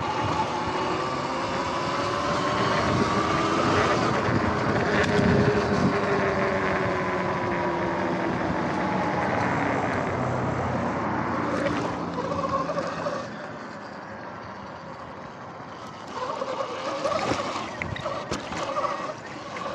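Sur-Ron X electric dirt bike riding along: the motor's whine glides up and down in pitch with speed, over a steady rush of wind and tyre noise. About two-thirds of the way through it goes quieter for a few seconds, then picks up again.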